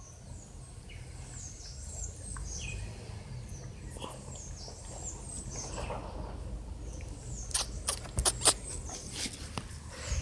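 Small birds chirping: short, high, falling chirps repeating every half second or so. A few sharp clicks and rustles come about three quarters of the way through.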